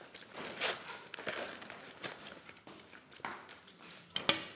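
Plastic wrap and taped cardboard parcel packaging rustling and crinkling as it is cut and pulled open, with a few sharp crackles, the loudest near the end.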